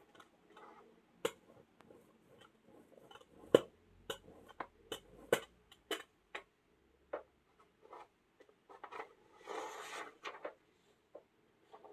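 Rubber ink roller rolled back and forth through black printing ink in a plastic tray, giving scattered clicks and knocks and a short sticky hiss about ten seconds in.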